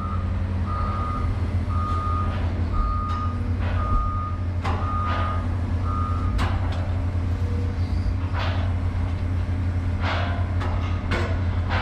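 Excavator's diesel engine running steadily, heard from inside the cab, with a back-up alarm beeping about once a second that stops a little past halfway. A few knocks and clanks come later.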